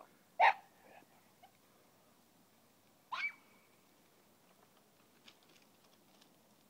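A hunting dog in brambles gives two short, sharp yelps about three seconds apart, the cry of a dog on a rabbit's trail. A few faint clicks follow.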